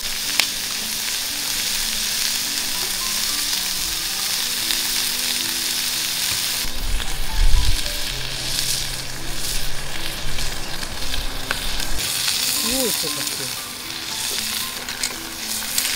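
Slices of beef frying in a cast-iron skillet over a wood fire, a steady sizzle. A single dull low thump about halfway through is the loudest moment.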